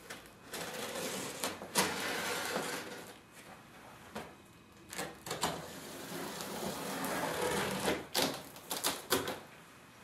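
Utility knife slicing through packing tape along the seams of a cardboard box: long scratchy strokes broken by several sharp clicks and snaps.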